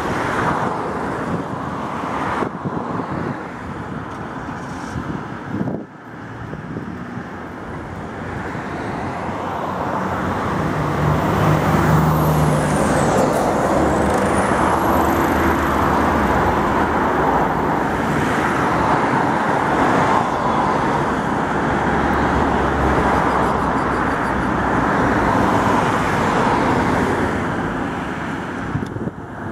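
T3-VPNP modernized Tatra T3 tram rolling along the track, its running noise growing louder as it nears and staying loud close by. A thin high whine dips and then rises in pitch midway.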